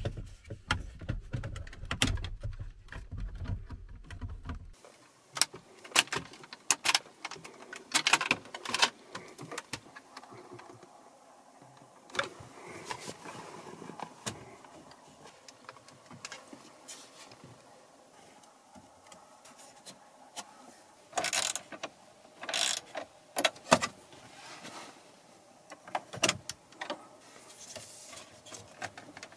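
Plastic dashboard trim of a Mercedes-Benz W212 E-Class being pried and pulled off by hand: a series of sharp clicks and knocks as the trim clips let go and the panels are handled, with a low rumble in the first few seconds.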